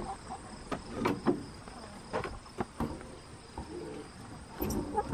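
Insects trilling steadily in the background, with scattered sharp knocks and taps, the loudest about a second in.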